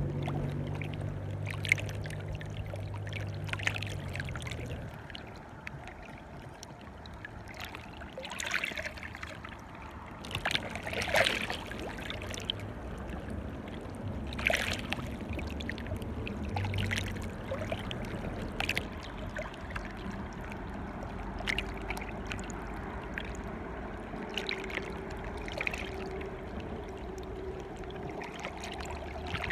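Water lapping and splashing in short, irregular slaps, as small waves wash against the shore. A low hum runs under it and stops about four seconds in.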